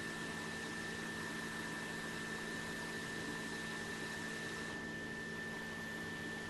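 Steady hiss and electrical hum with a constant thin high whine, as from running bench equipment; the upper hiss eases slightly about five seconds in.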